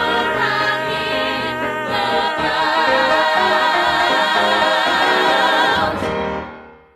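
A vocal ensemble holds the final chord of a show tune with vibrato, cutting off about six seconds in and fading into its echo.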